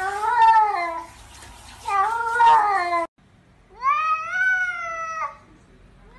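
Cats meowing in drawn-out, speech-like phrases. First come two long meows from an orange cat. Then, after a break, a tabby gives one long meow that rises in pitch and drops off at the end, the kind of call that gets captioned as 'I love you'.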